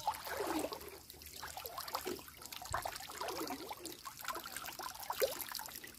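Shallow stream water trickling and gurgling, with many small irregular bubbling sounds.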